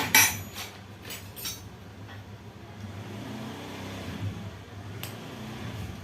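A few sharp metal clinks and knocks in the first second and a half, the loudest at the start, from tools and parts during a motorcycle engine teardown, over a steady low mechanical hum.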